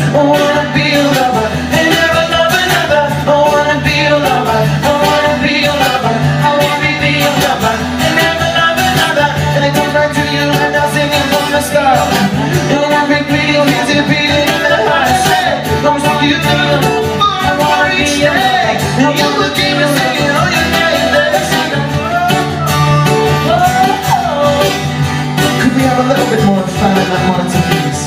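A live acoustic band playing a song: acoustic guitars with singing, amplified through a PA.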